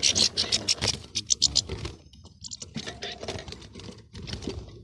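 European goldfinches chattering and squabbling: rapid high twittering call notes, dense in the first second, thinning out about two seconds in, then picking up again.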